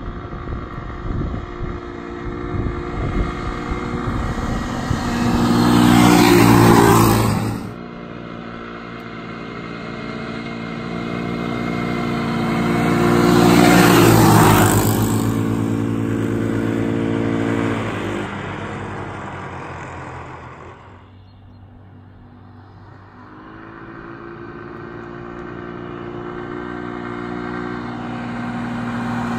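Small ATV engine at high revs as the quad speeds toward and past. The first run builds to a peak and breaks off suddenly. A second builds to a peak about halfway through, drops in pitch as it goes by and fades out, and another approach builds near the end.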